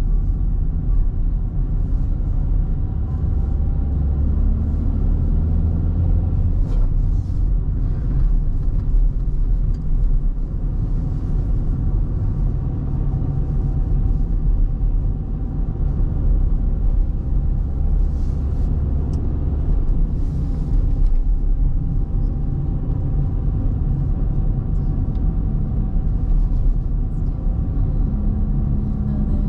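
Car driving along a paved road, engine and tyre rumble heard from inside the cabin, with a faint steady whine above it.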